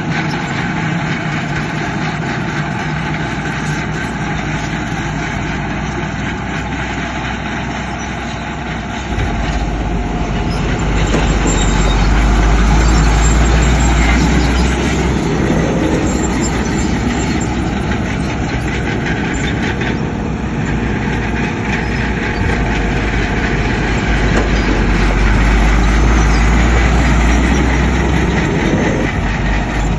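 Heavy diesel earthmoving machinery working: a steady, loud mechanical rumble that grows deeper and heavier about nine seconds in.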